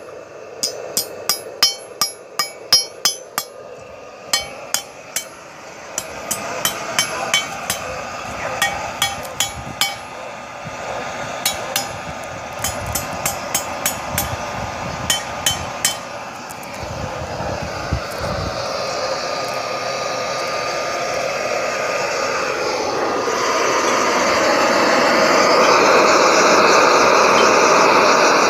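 Hammer blows on hot steel at the anvil: quick ringing strikes, about two to three a second, in runs with short pauses, ending about 16 seconds in. Underneath, a steady rushing roar from the homemade propane forge's burner grows louder through the second half.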